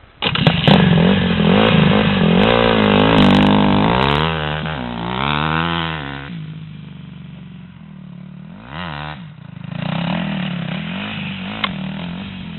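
Dirt bike engine revving up and down in pitch close by. It drops away about six seconds in, then picks up again about ten seconds in.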